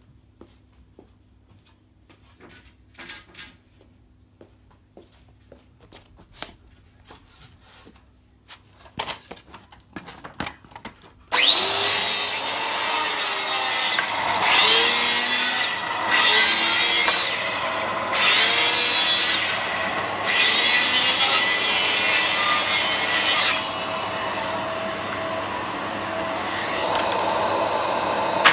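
Light handling knocks, then about eleven seconds in a circular saw with a vacuum hose attached starts up suddenly. The saw cuts through a reclaimed wooden board in about five loud, harsh passes, each a second or two long. After the last pass a steady hum keeps running, from the attached vacuum.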